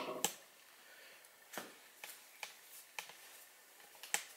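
A few light clicks and taps from handling, about seven spread over four seconds, the sharpest near the end.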